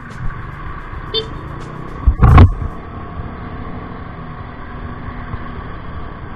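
Honda Click 125i scooter's engine and road noise as it pulls away from a stop, with a loud brief thump on the microphone about two seconds in.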